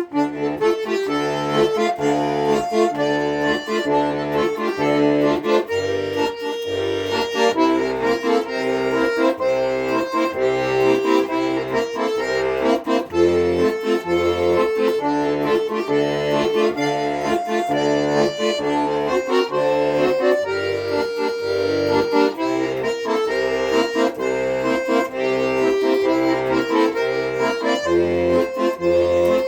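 Accordion playing an instrumental passage: a melody over a bass-and-chord accompaniment that pulses evenly, about twice a second.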